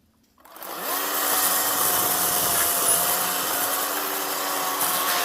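Ryobi ONE+ 18V HP brushless 10-inch battery chainsaw starting up about half a second in, its pitch rising, then cutting steadily through a tree trunk, a loud electric whine over the chain's rasping in the wood.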